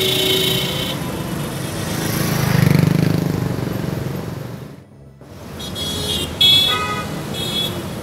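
Car horns honked by passing drivers in traffic, sounded in answer to a 'press horn' protest banner. One horn sounds in the first second, a car drives close past about three seconds in, and a second horn blast, louder, comes about six and a half seconds in.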